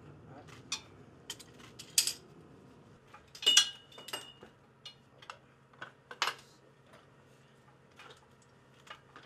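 Scattered metallic clicks and clinks of hand tools and parts on a KC-135 wheel brake assembly being worked on. The loudest is a ringing clink about three and a half seconds in.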